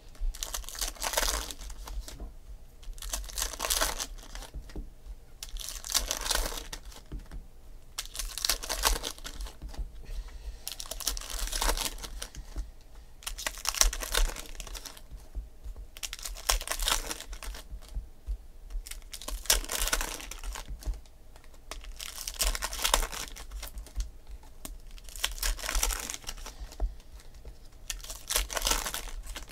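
Foil wrappers of 2008 SP Authentic baseball card packs being torn open and crinkled by hand, pack after pack. About a dozen crackling bursts come every two to three seconds.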